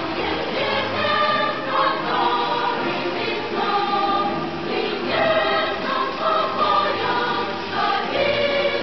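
Choral music: a choir singing held notes that change pitch every half second or so.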